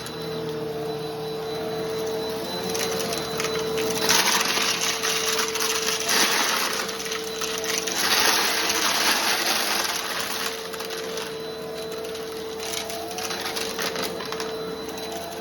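Bissell PowerForce Helix Turbo Rewind Pet upright vacuum running with a steady motor whine. Between about four and ten seconds in there are loud stretches of crackling and rattling as crunchy debris is sucked up.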